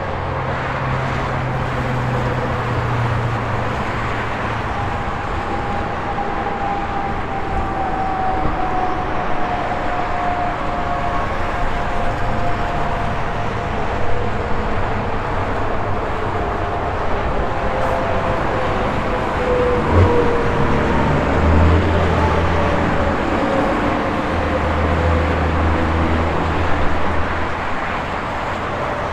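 Highway traffic: a steady wash of tyre noise, with trucks and cars going by. Their engine tones slide slowly down in pitch as they pass, and heavy engines hum low near the start and again from about 21 to 27 seconds in. A single short knock is heard about 20 seconds in.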